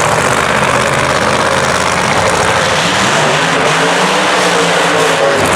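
Loud racing engine running, its pitch swelling up and falling back from about two and a half seconds in.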